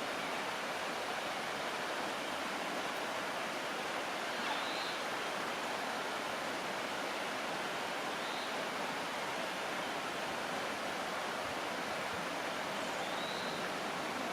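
Union Creek's rushing water making a steady, even hiss, with a few faint high chirps heard above it.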